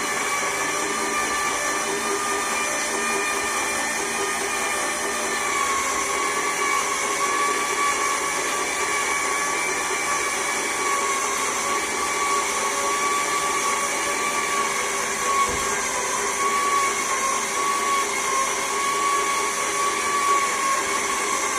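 Electric motor of a homemade equipment lift running steadily, moving the platform, with a whining tone that wavers slightly in pitch.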